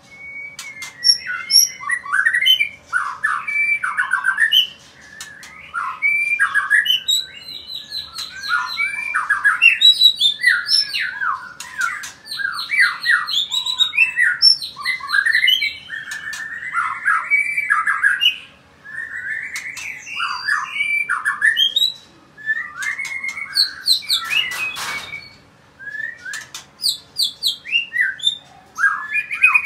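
Male white-rumped shama singing a long, varied song of whistles, chattering phrases and rapid repeated notes, with short pauses between phrases. A brief rustle comes about 25 seconds in.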